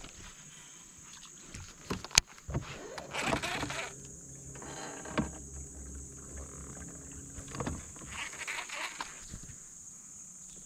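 Fishing-boat handling sounds as a lure is flipped into cover. There is a sharp click about two seconds in and a rustle, then a steady low hum for several seconds among small knocks, over a constant high hiss.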